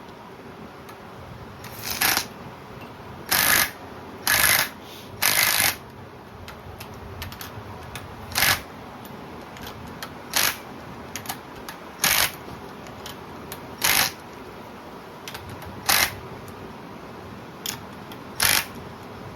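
Socket ratchet clicking in about ten short strokes, one to two seconds apart, as rocker arm nuts are run down on the engine's valvetrain.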